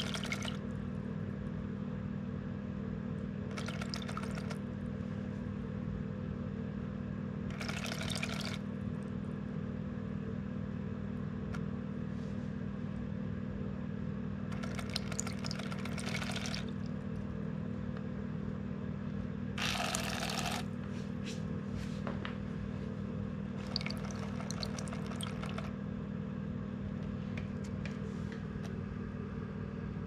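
Prototype 'Cicada' fishing lure running in a bucket of water: its 8×16 mm coreless DC motor hums steadily while the spinning wing blades churn and slap the surface. Short bursts of splashing come every few seconds, about six in all.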